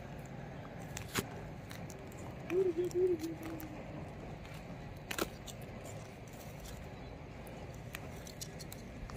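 Fire of burning engine oil and wood crackling quietly, with scattered sharp pops, the loudest about a second in and about five seconds in. A brief wavering tone sounds about two and a half seconds in.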